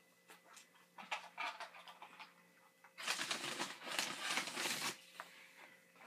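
Eating sounds: soft mouth clicks and smacks while fast food is chewed. About halfway through comes roughly two seconds of louder, hissing rustle that is the loudest thing heard.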